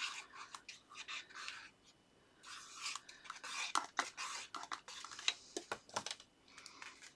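Paper and card being handled on a craft desk: bursts of rustling and scraping, then several sharp taps and clicks near the end.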